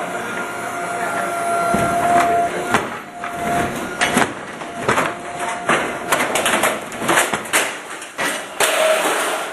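Electric mini excavator working a demolition attachment: irregular sharp knocks and cracks over steady machine noise, with a steady whine that comes and goes.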